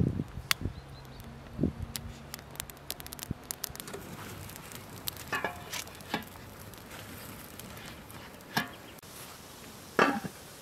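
Dry twigs snapping and crackling under a rebar pot stand, then a few metal knocks as a large metal pot is set over the fire, and a louder clink of the lid going onto the pot near the end.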